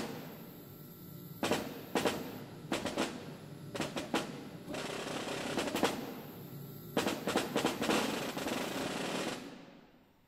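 Snare drum played with sticks: sharp single strokes and short flurries between longer rolls, the last roll fading away near the end.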